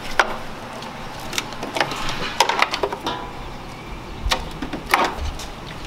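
Irregular sharp plastic clicks and knocks as a pickup's headlight assembly is worked loose and pulled from the front end by hand.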